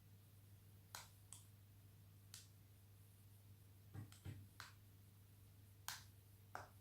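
Faint, scattered small clicks and light taps, about eight over several seconds, of plastic and metal laptop parts being handled as the display cable is fitted to the new screen, over a low steady hum.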